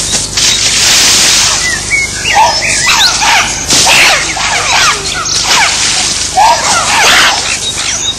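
A group of chimpanzees screaming in alarm, many loud overlapping calls rising and falling in pitch.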